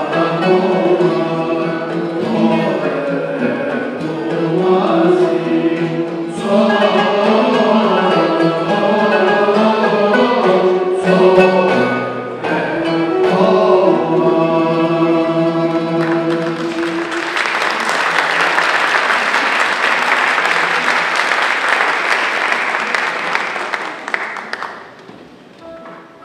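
Choir singing a Sephardic synagogue hymn in Turkish makam style, accompanied by traditional Turkish instruments; the song ends about two-thirds of the way through. Audience applause follows for several seconds, then dies away near the end.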